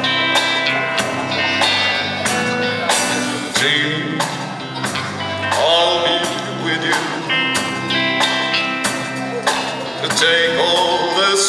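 Live band playing a slow rock-and-roll ballad: drum kit keeping a steady beat under amplified acoustic and electric guitars, with held guitar notes.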